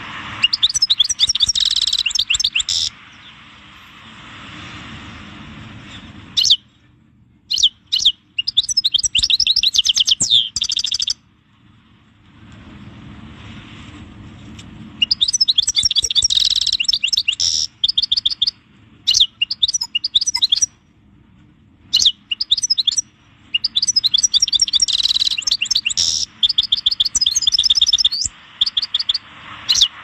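European goldfinch singing in bursts of rapid, twittering high trills, each phrase lasting from about a second to several seconds, separated by short pauses. A faint steady background noise fills the gaps between phrases.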